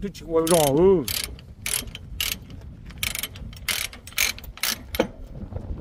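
Ratchet chain binder being cranked to tighten a tie-down chain, its pawl clicking in a steady run of about three clicks a second, often in pairs.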